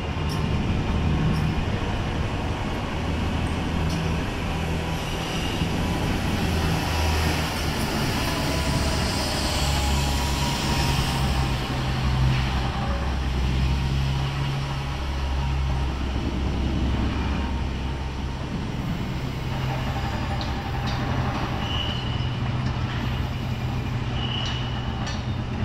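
Train running through the rail corridor: a steady low hum that shifts pitch in steps, over a background hiss, with a few brief high-pitched squeals near the start and again near the end.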